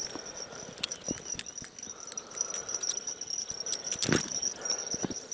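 Steady, high-pitched chirring of insects in the grass, over scattered clicks and rustles of hands unhooking a small fish from a feeder rig, with a louder rustle about four seconds in.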